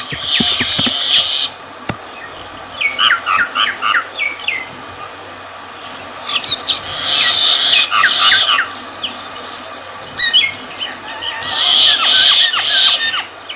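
Myna calling in four bouts with short pauses between them, mixing harsh squawks with quick whistled and chattering notes.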